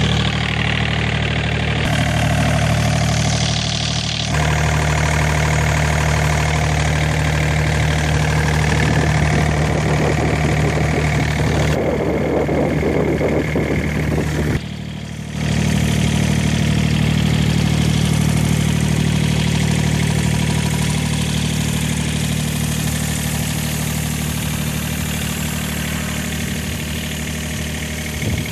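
Komatsu PC35MR-2 mini excavator's diesel engine idling steadily, with a brief dip in the sound about halfway through.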